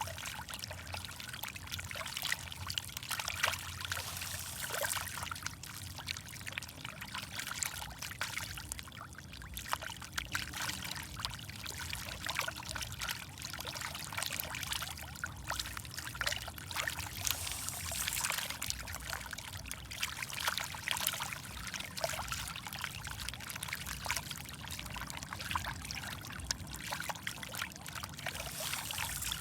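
Water splashing and trickling, dense with irregular small pops and splashes, as a crowd of fish feed at the water's surface.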